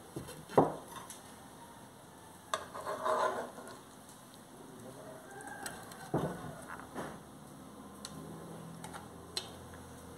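Metal spatula scraping and knocking against a metal pan as shrimp and vegetables are scooped out onto a plate, with a few sharp clinks, the loudest about half a second in.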